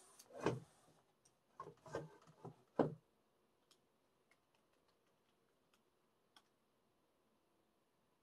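Handling of a boxed music album's contents on a desk: a few knocks and rustles of cardboard and paper items in the first three seconds, then a handful of faint ticks.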